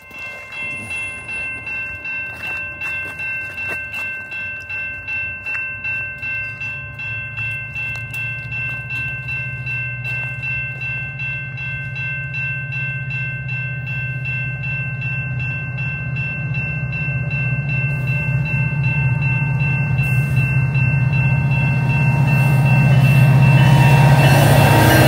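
Level-crossing warning bell ringing at about two strokes a second, while the low rumble of an approaching GO Transit diesel train builds steadily louder, reaching the crossing near the end.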